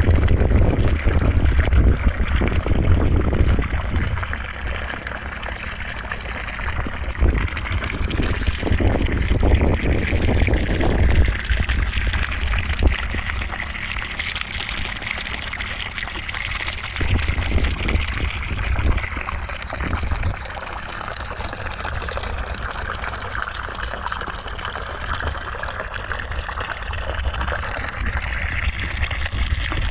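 Continuous rushing white noise with a gushing, running-water character, its tone shifting slowly but never stopping.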